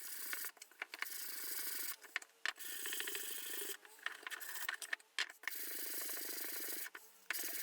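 Hand sanding with sandpaper on a Danish-oiled walnut box: a light sanding between coats of oil, in four long even strokes of about a second each with short pauses and a few light knocks between them.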